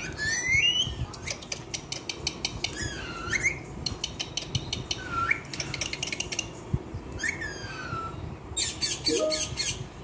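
Indian ringneck parrots calling: about four short squawks that slide down or up in pitch, separated by bursts of rapid clicking.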